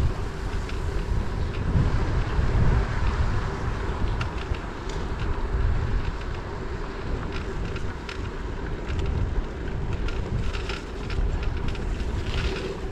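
Wind buffeting a head-mounted action camera's microphone while cycling: a steady, fluctuating low rumble, with scattered light clicks and rattles.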